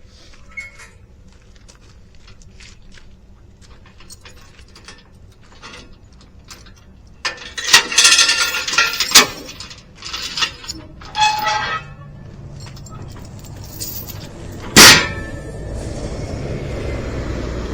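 Metal clanking and rattling, loudest in a burst of clatter about halfway through, with one sharp clang about fifteen seconds in. After the clang a steady low engine rumble sets in.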